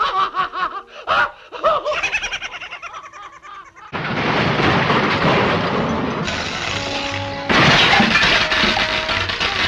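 Cartoon soundtrack: orchestral score with comic sound effects. About four seconds in, a loud, dense rushing noise effect starts suddenly and carries on, stepping up in loudness a few seconds later.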